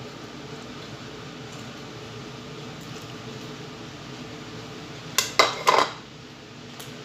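An emptied bowl being set down on the counter, clattering in a few quick clinks about five seconds in, over a steady low hum and hiss.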